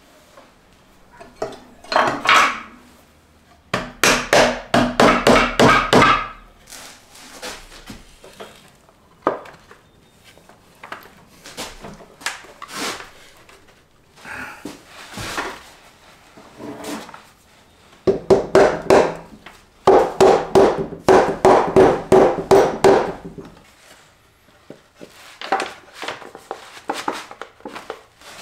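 Runs of quick knocks on a dovetailed wooden drawer box, a mallet tapping the joints home, in several bursts of a couple of seconds each with quieter handling between.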